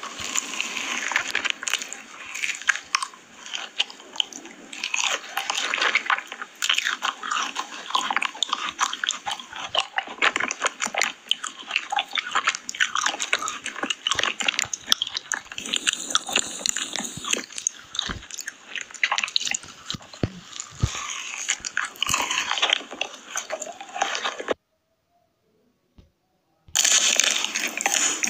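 Close-miked ASMR eating: a person biting into and chewing crunchy food, a dense run of crisp, irregular crackles. It breaks off for about two seconds near the end, then the crunching resumes.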